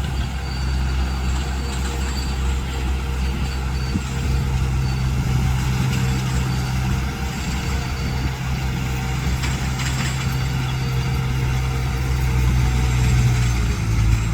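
Diesel engine of a heavy earthmoving machine running steadily with a low, even drone.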